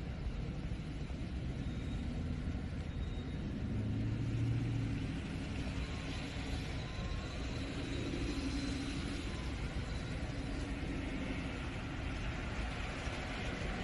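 Steady rumble of a line of police cars driving past on a wet road, heard from inside a car.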